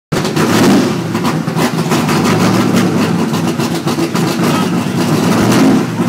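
Plymouth Superbird race car's 426 cubic-inch V8 idling loudly, with a steady pulsing beat and a slight rise in revs near the end.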